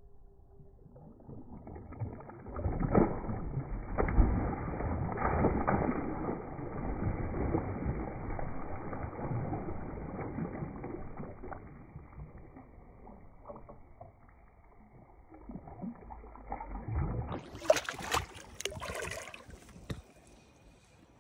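Water splashing and churning as a hooked bowfin thrashes at the surface, loudest in the first half, easing off, then a second burst of sharper splashes near the end.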